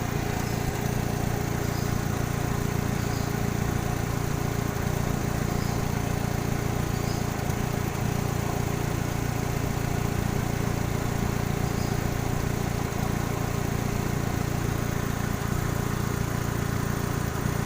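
Kia Sephia's four-cylinder petrol engine idling steadily.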